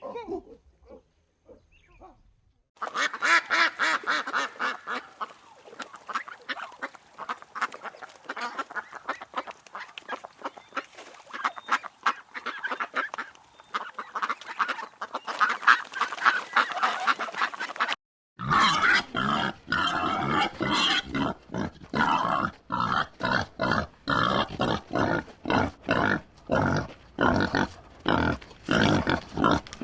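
A flock of waterfowl calling rapidly and continuously in dense honks and quacks. About two-thirds of the way through, a sudden cut leads to pigs grunting in quick, repeated bursts.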